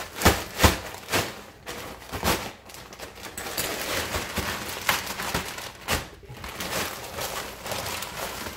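A plastic bag being crinkled and rustled by hand: a run of sharp crackles and taps in the first second or so, then steadier rustling with scattered clicks.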